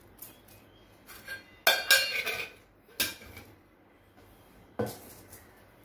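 Metal kitchenware clinking and knocking around a stainless steel mixer-grinder jar: a few light taps, then a loud clink with a brief metallic ring about two seconds in, another clink a second later and a single knock near the end.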